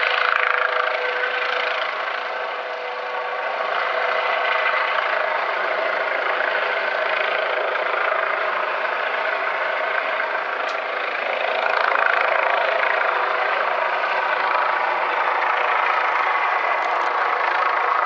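Helicopter hovering: a steady drone from its rotor and turbine, with a faint steady hum underneath, swelling slightly at the start and again about twelve seconds in.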